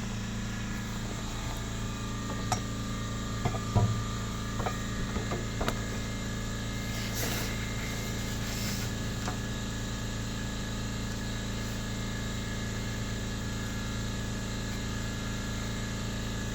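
Scattered small clicks and knocks of hands unclipping and handling coil-pack connectors, bunched in the first few seconds, with two short scraping rustles a few seconds later, over a steady mechanical hum.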